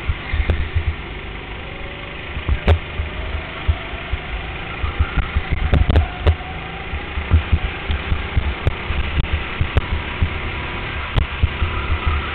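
Onboard sound of a go-kart being driven hard around a track: the kart's motor running, its pitch rising and falling through the corners, under a heavy rumble with irregular knocks and rattles from the chassis shaking the mounted camera.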